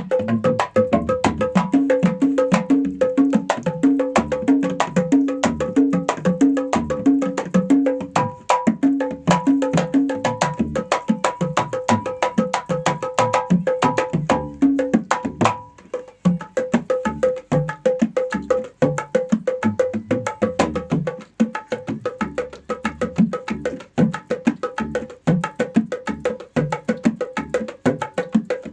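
A Black Papua kendang set (kendang and ketipung drums) played by hand in a fast, continuous dangdut koplo rhythm. Dense slaps mix with tuned, ringing drum strokes, with a brief pause about sixteen seconds in.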